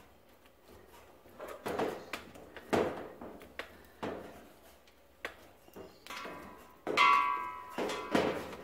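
Plastic gas hose being twisted and pushed onto a metal hose barb: short rubbing and scraping sounds, then a high squeak of plastic on metal for about a second and a half, starting about six seconds in.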